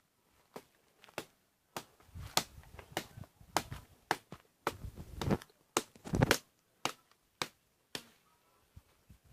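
Footsteps crunching over the dry forest floor, a string of sharp irregular snaps with some low thumps. They are densest and loudest in the middle and thin out toward the end.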